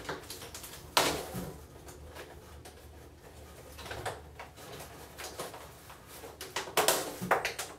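X-Acto knife working at the tough plastic zip ties that hold an RC truck in its packaging, with sharp snaps and clicks over rustling plastic and cardboard. The loudest snap comes about a second in, and a quick run of snaps comes near the end.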